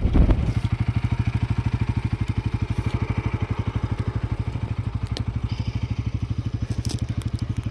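An engine running at a steady idle with a fast, even throb, cutting in suddenly.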